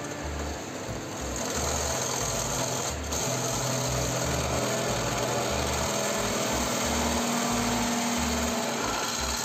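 Benchtop drill press running, its bit cutting into a thick-walled square hollow steel tube. The cutting noise grows louder about a second and a half in and then holds steady.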